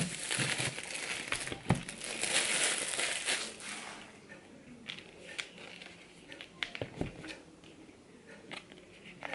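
Apple Watch box packaging being opened by hand: crinkling and tearing, loudest in the first few seconds, then quieter rustling and handling with a few sharp clicks.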